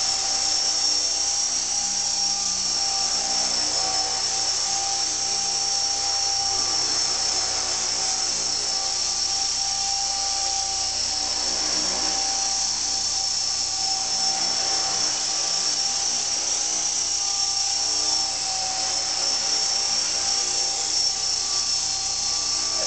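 Heli-Max Axe CP collective-pitch RC helicopter hovering: a steady high-pitched electric motor and gear whine with the rotor's hum, its pitch wavering slightly as the throttle is held.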